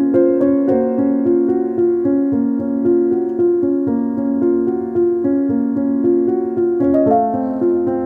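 Background piano music, a slow run of sustained notes and chords.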